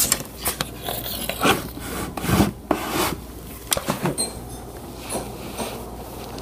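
Wooden drawer sliding open and being rummaged in: irregular wooden knocks, clicks and scraping.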